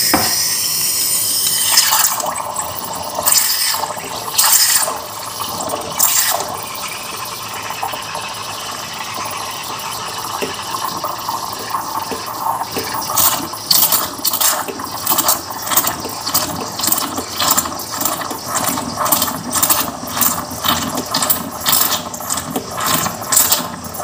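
Inalsa espresso coffee maker's steam wand frothing milk in a mug: a steady steam hiss at first, then from about two seconds in a continuous gurgling as the steam bubbles through the milk, with rapid popping that grows denser after about halfway.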